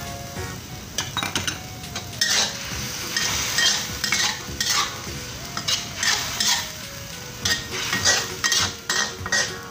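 Metal spatula scraping and stirring in a honeycomb-textured metal wok, in irregular strokes, over food sizzling in a thin sauce.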